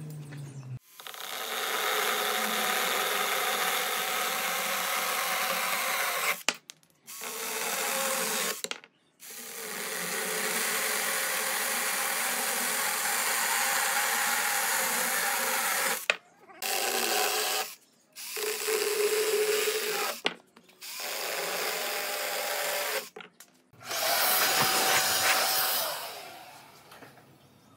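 Cordless drill boring into dry tree branches, running in a series of bursts a few seconds long with short breaks between. Near the end a different power tool runs briefly, with a deeper, rougher sound.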